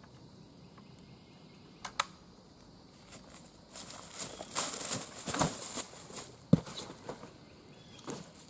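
Running footsteps crunching through dry leaf litter, starting about three and a half seconds in and tailing off near the end, with a sharp knock partway through. Two sharp clicks come about two seconds in, before the running starts.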